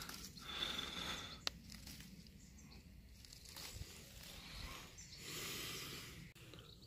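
Faint rustling of bramble leaves and stems as blackberries are picked by hand, with a single sharp click about one and a half seconds in.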